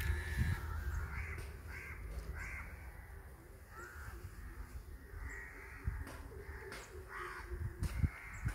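Crows cawing repeatedly, a short harsh call every second or two.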